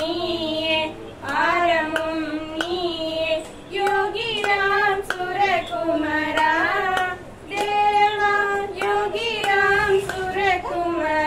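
A high solo voice singing a devotional bhajan in long, wavering, held phrases with short breaks for breath, with sharp clicks at intervals.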